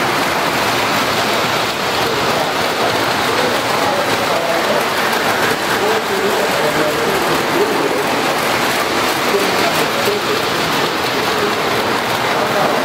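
Several O-scale model trains running at once on steel track: a steady, dense rolling noise of wheels and motors with no breaks.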